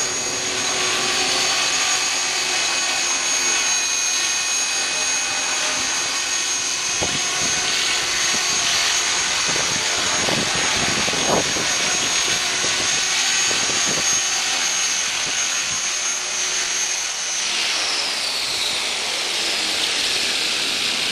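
Align T-REX 450SE v2 electric RC helicopter hovering: a steady high whine from its motor and gears, with rotor blade noise. About three quarters of the way through, the whine starts falling in pitch as the rotor winds down with the helicopter on the ground.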